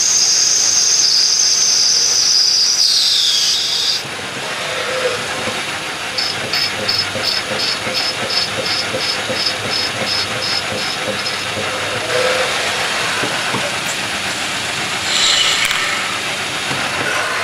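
CNC gang-tool lathe running its cycle on brass bar stock, with a steady hissing noise throughout. A high-pitched whine from the tool cutting holds for the first three and a half seconds, then drops away. A run of quick regular high pulses at about three a second follows in the middle, and a brief high whine comes back near the end.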